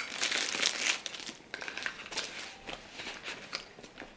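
Crinkling and rustling as toiletry items and their packaging are handled and pushed into a toiletry bag, busiest in the first second, then thinning to scattered light rustles and clicks.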